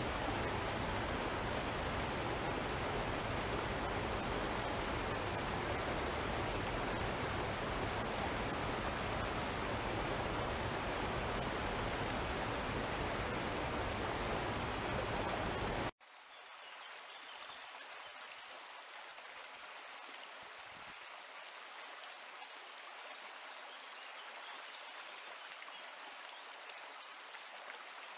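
Creek water rushing steadily over stones. About halfway through it cuts suddenly to a quieter, thinner rush of flowing river water.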